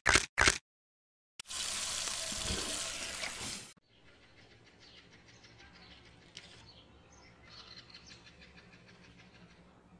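Two quick pops, then about two seconds of loud, steady hiss that cuts off sharply, followed by faint high chirping of small birds.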